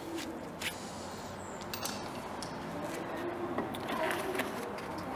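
A few faint, sharp metallic clicks and light scraping of pliers working the pad-retaining pin of a brake caliper, with a small cluster about four seconds in.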